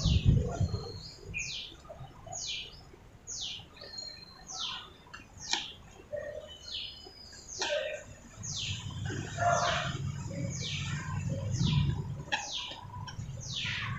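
A bird calling over and over: thin, high whistles that each drop sharply in pitch, about one a second, with a few short level notes in between. A low rumble sets in about halfway through and fades near the end.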